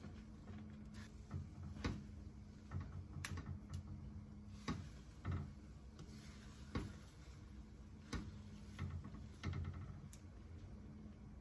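Plastic spatula stirring and folding thick, sticky glutinous rice and palm sugar mixture in a nonstick frying pan, giving irregular soft clicks and knocks as it scrapes and taps the pan, over a faint steady hum.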